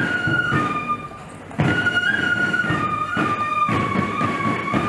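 Flutes playing a melody of held notes over drum strokes, with a short break between phrases about a second in.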